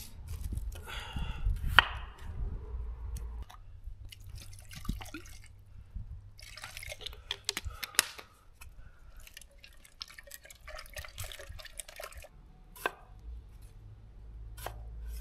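Kitchen knife chopping potato into chunks on a wooden cutting board, then water poured from a plastic bottle into a small pressure-cooker pot full of potato pieces, splashing and dripping. Near the end the knife knocks on the board again, cutting a tomato.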